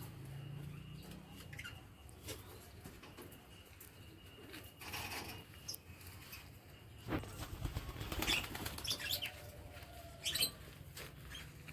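Lovebirds and doves flapping their wings in several short flurries, the busiest about two thirds of the way in, with a few brief high chirps.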